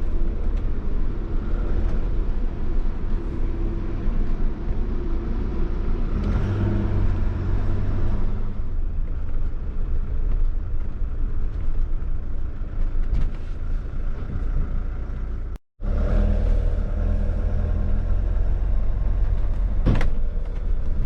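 The motorhome's Fiat Ducato diesel engine running as it drives, a steady low rumble with road noise heard from inside the cab. There is a brief complete dropout about two-thirds of the way through.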